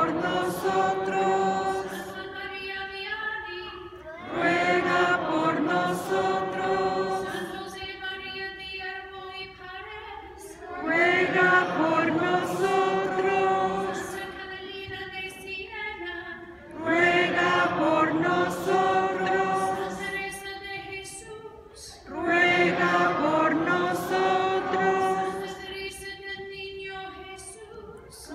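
Choir singing a chant in short phrases that repeat about every six seconds, each starting loud and trailing off.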